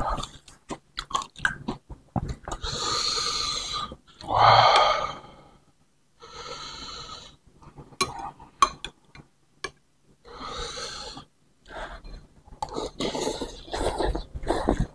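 Eating sounds at a bowl of bakso soup with rice vermicelli: several long, noisy breaths of about a second each, sharp clicks of a metal spoon and fork against the bowl, and close chewing and slurping of noodles near the end.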